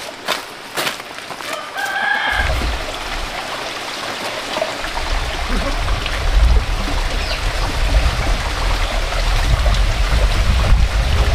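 A few light footsteps, then a chicken gives one short call about two seconds in. After that, wind buffets the microphone with a low rumble over a steady rushing noise, which grows louder midway.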